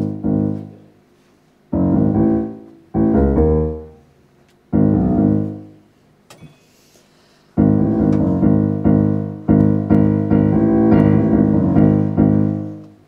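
Keyboard playing a piano sound: single chords struck and left to ring out and fade, a few seconds apart, then a longer run of chords played one after another through the second half, dying away near the end.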